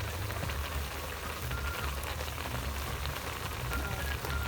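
Pan of karupdop mushrooms simmering in a little water, giving a steady fine crackling hiss over a low rumble.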